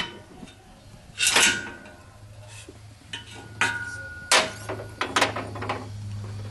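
Steel hand tools and parts clinking and clanking against the metal of the lathe: several sharp strikes, the loudest about a second in and again around four seconds in, some leaving a brief metallic ring. A steady low hum runs underneath.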